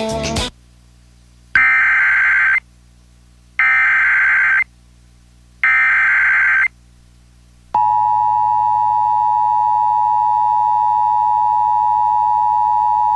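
Music cuts off, then an Emergency Alert System header plays: three one-second bursts of digital data tones, about two seconds apart. About eight seconds in, the long steady EAS attention tone starts, announcing the tornado warning to follow.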